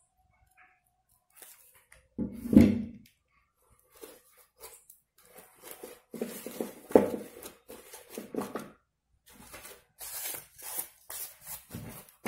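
Dried corn husk strips rustling and crinkling in irregular bursts as hands press and handle them on a paper cone, with a louder bump about two and a half seconds in.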